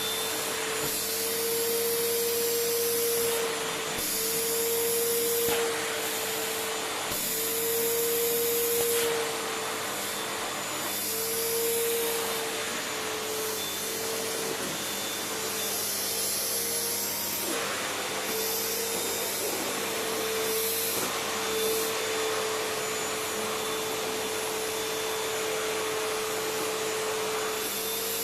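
Vacuum cleaner running continuously while it is drawn over a cat's fur; its hiss swells and its motor note lifts slightly in repeated strokes lasting a second or two, then it runs steadily for the last several seconds.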